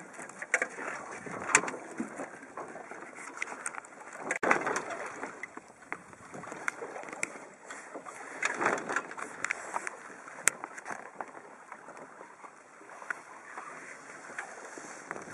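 Water sloshing and slapping against the hull of a small sailboat under sail, in irregular swells every few seconds, with scattered sharp clicks and knocks.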